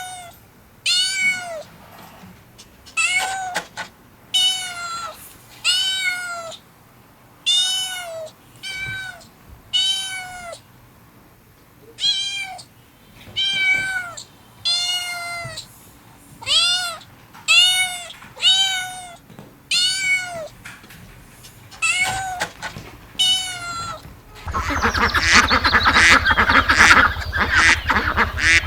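A cat meowing over and over, with more than a dozen separate, high-pitched meows, each rising and then falling, about a second or so apart. About four seconds before the end it cuts to a dense, noisy clamour of waterfowl calls over a low hum.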